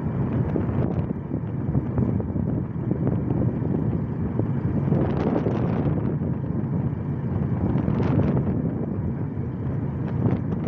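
Steady low rumble with wind buffeting the microphone, swelling briefly twice in the middle.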